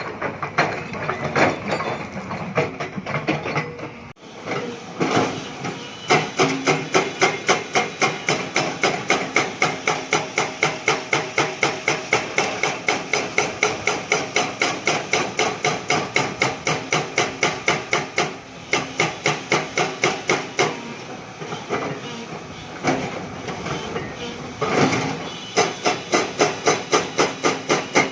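Hyundai excavator working limestone: rapid, evenly spaced metallic blows, about four to five a second, over the engine running. The blows stop about 21 seconds in and start again about 25 seconds in.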